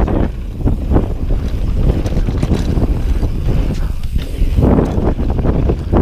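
Wind buffeting an action camera's microphone as a downhill mountain bike descends a dirt trail at speed, with tyres rolling over hard-packed dirt and a run of short knocks and rattles from the bike over bumps.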